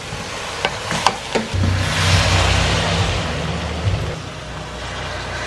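A wooden spoon knocks a few times against an aluminium pressure-cooker pot as browned meat is stirred. About one and a half seconds in, boiling water is poured from a kettle onto the hot meat, hissing and sizzling loudly for a couple of seconds before settling down.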